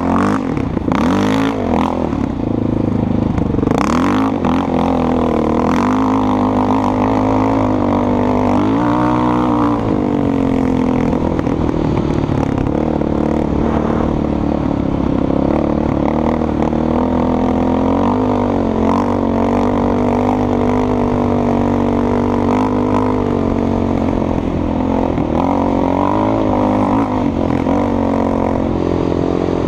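Yamaha Raptor 700 quad's single-cylinder four-stroke engine running as it is ridden, its revs rising and falling, with a few knocks near the start.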